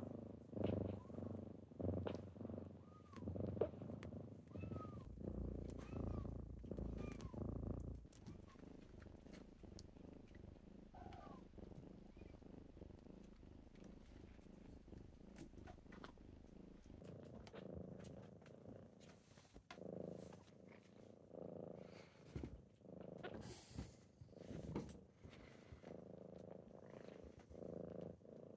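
Kitten purring: a low purr that swells and fades with each breath, louder in the first few seconds.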